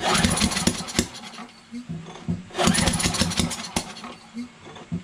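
Recoil starter pulled twice on a Craftsman 8 hp snowblower engine: each pull cranks the engine for about a second in a quick run of pulses, and it does not catch. The owner suspects the ignition timing is off, perhaps from a sheared flywheel key, or bad valves.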